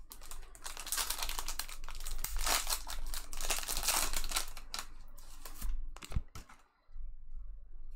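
Crinkly wrapping on trading-card packs being torn open and handled, a dense run of crackling and ripping for about six seconds that thins to a few clicks near the end.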